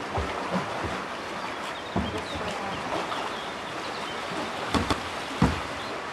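Kayak paddle strokes splashing in flowing river water, with the steady rush of the river throughout. A few sharper splashes stand out, one about two seconds in and a cluster near the end.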